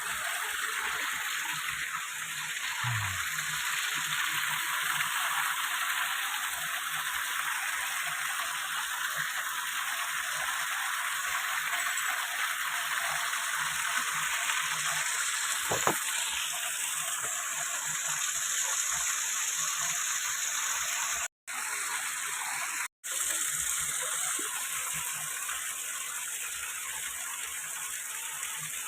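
Waterfall rushing: a steady, even roar of falling water. The sound cuts out completely for an instant twice, about two-thirds of the way through.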